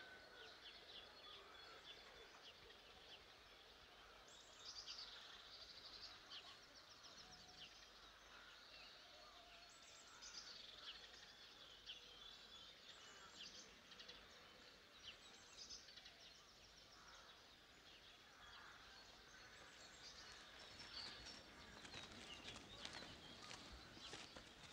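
Faint birdsong, short high chirps and trills here and there, over quiet outdoor ambience. From about twenty seconds in, soft rustling taps build up.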